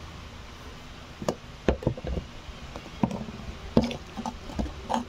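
A series of irregular light knocks and clicks as bottles and other small objects are handled and set down on a tabletop close to the microphone.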